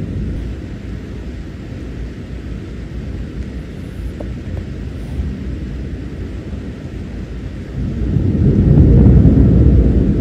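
Low, rolling thunder rumbling on, easing a little at first, then swelling loudly again about eight seconds in.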